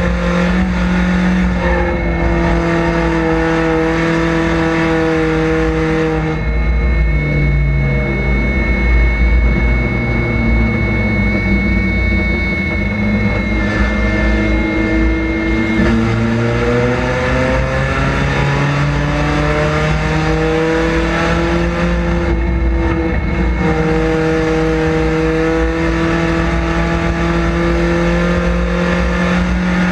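Chevrolet Cavalier street stock race car's engine heard from inside the cockpit, running at high revs. About six seconds in the revs fall away and stay low for several seconds, then climb steadily back up and hold high near the end.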